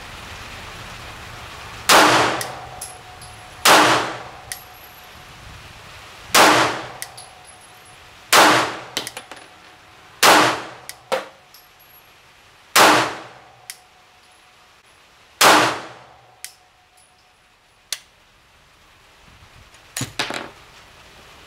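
Glock 19 9mm pistol firing seven shots of 115-grain handloads, spaced about two to three seconds apart, with a faint ringing tone after several of them. Near the end comes a lone sharp click with no shot: a misfire from a light primer strike.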